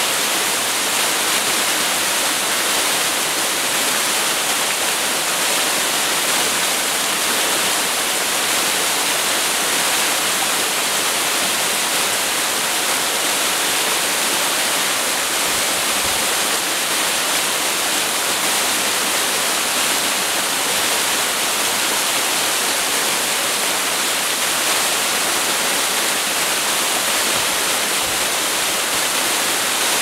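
Small waterfall pouring over a rock ledge and splashing onto the rocks below: a steady, unbroken rushing hiss.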